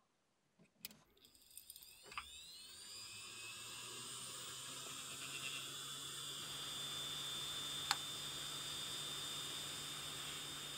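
3.5-inch hard drive spindle motor, driven from a motor driver board, starting up with a few clicks and then spinning up with a whine that rises in pitch and levels off into a steady high whine over a low hum. A single sharp tick comes about eight seconds in.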